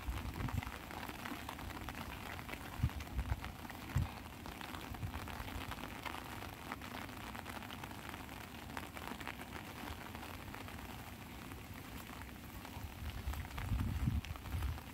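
Light rain pattering steadily on an umbrella, many fine drops. A few dull low thumps sound near the start, at about three and four seconds, and again near the end.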